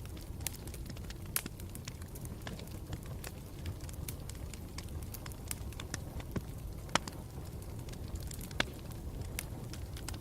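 Campfire burning with a steady low rumble and irregular crackles and pops of the burning wood. The sharpest pops come about seven and eight and a half seconds in.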